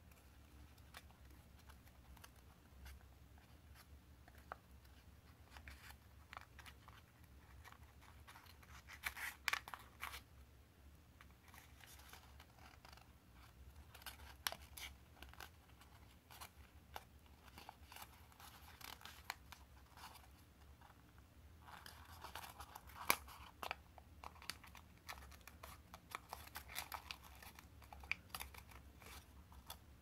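A sheet of origami paper being folded and creased by hand: faint rustling and crinkling with scattered sharp crackles. There are louder bursts about a third of the way in and again around three-quarters through.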